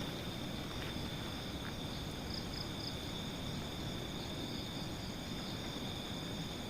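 Night insects, crickets, chirping with a steady high drone over a constant hiss of microphone noise; three short chirps stand out about two and a half seconds in.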